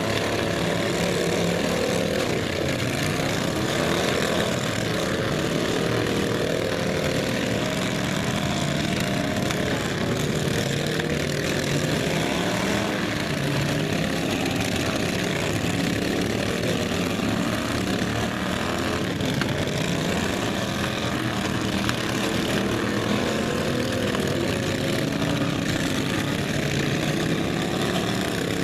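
Several racing riding lawn mowers' small engines running together in a steady drone, their pitch rising and falling as they speed up and slow down.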